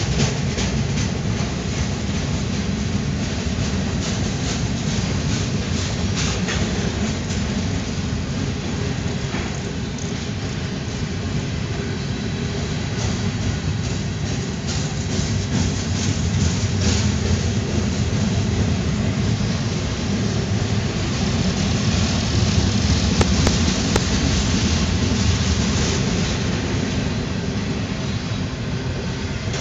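Freight train cars rolling past close by: a steady rumble of steel wheels on the rails, with scattered clicks and clacks as the wheels cross rail joints.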